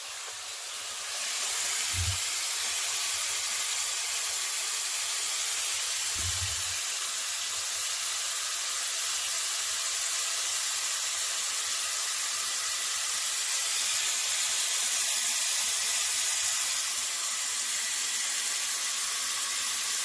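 Water from a shower head spraying into the plastic tub of a mini portable washing machine as it fills. A steady hiss of running water that gets louder about a second in.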